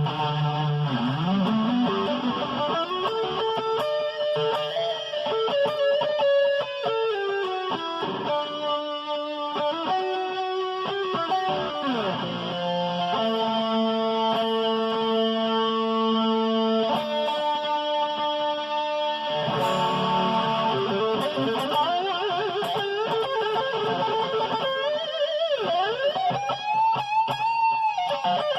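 Electric guitar with EMG active pickups played through distortion: held notes and runs, with pitch bends and a falling dive about twelve seconds in, and more swoops near the end.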